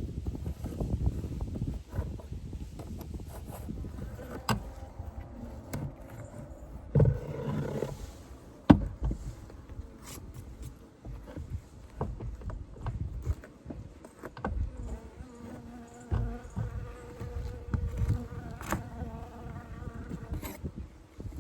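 Honeybees buzzing around an opened hive, a wavering hum, with a few sharp knocks and clicks from the wooden frames being handled, the loudest about nine seconds in.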